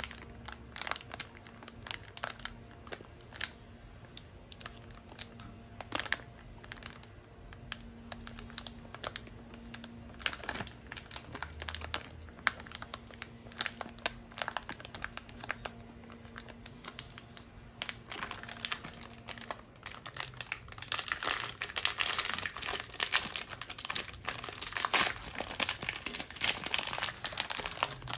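Foil-lined plastic wrapper of a cookie packet crinkling and crackling in the hands. In the last third the crinkling grows denser and louder as the wrapper is torn open.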